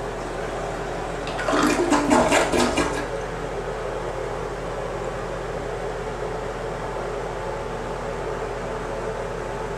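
Toilet flushing: a short, loud gurgling rush of water about a second in that dies away within two seconds, over a steady hiss.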